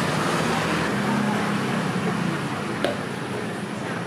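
Street-stall ambience: a steady wash of background noise with faint murmured voices, and a single light click a little under three seconds in.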